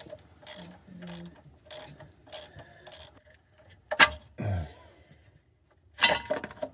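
Hand ratchet wrench clicking in short strokes, about one every half second, on bolts at the side of a transmission, with a sharper, louder click about four seconds in and a quicker run of clicks near the end.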